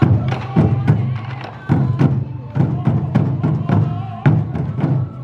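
Sansa odori festival music: many taiko drums beaten by the dancers in a brisk, uneven volley of deep booming strikes, with a bamboo flute melody above.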